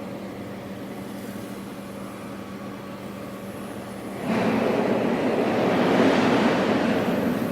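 Cummins diesel generator set running with a steady hum. About four seconds in it turns suddenly much louder, with a rough rushing noise added on top.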